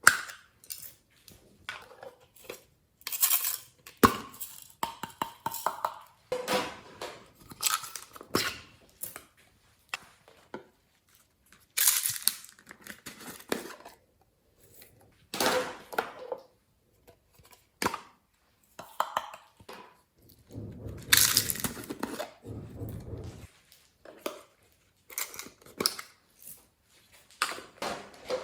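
Irregular taps, clinks and scrapes of utensils and containers being handled while mixing slime, with a longer stretch of handling noise about three quarters of the way in.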